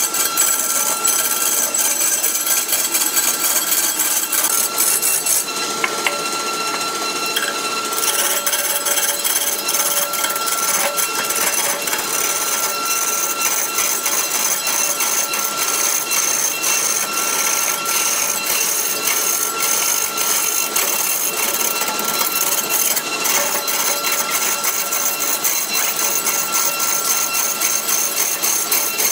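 Wood lathe turning a large wooden blank while a hand-held turning tool cuts into it: a steady, dense scraping and chattering of the tool edge on the spinning wood, with a constant thin whine underneath.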